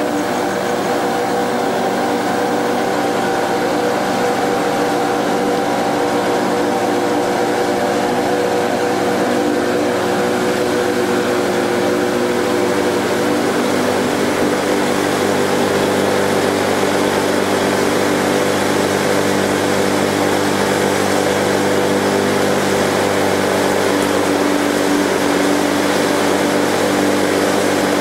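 Boat engine running steadily while the boat is under way, with a constant hum and water noise throughout; its low notes grow slightly stronger about halfway through.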